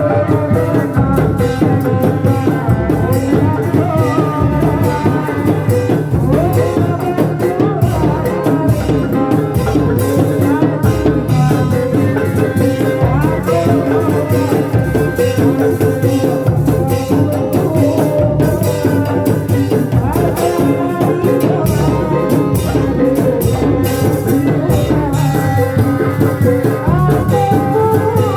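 Reak ensemble music for a kuda lumping performance: fast drumming with rattling percussion under a wavering, bending melody line.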